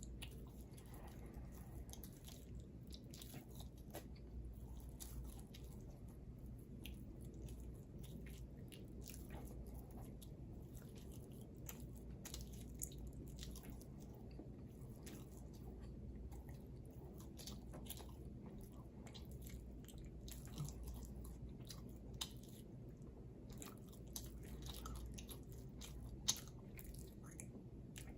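Faint chewing and mouth sounds: scattered small clicks and smacks, with a few sharper ticks, over a steady low hum.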